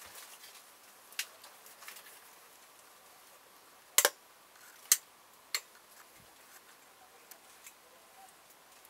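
Scattered sharp clicks and knocks over a faint steady hiss: one about a second in, a loud double click about four seconds in, then two more within the next second and a half.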